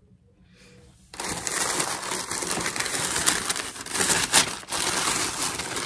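Tissue paper in a cardboard shoe box crinkling and rustling as hands pull it apart to unwrap a pair of shoes. It starts about a second in and stays loud and busy.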